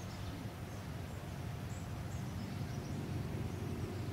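Steady low background hum with a few faint, short, high chirps from birds.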